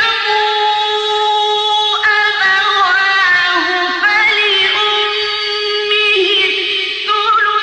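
Male Quran reciter's voice in melodic tajweed recitation, drawing out long high notes that bend and turn in pitch.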